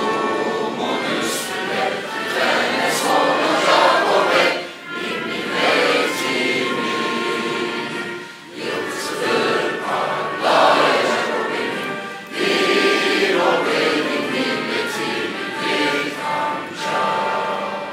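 A national anthem sung by a large group of voices together, in sung phrases with short breaks between them.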